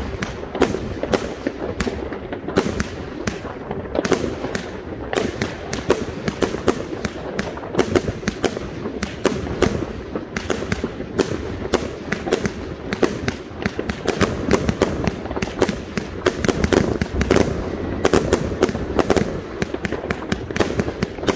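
Funke Corolla-Blue 30 mm firework compound firing shot after shot: a rapid, unbroken string of shells launching from their tubes and bursting overhead, several bangs a second.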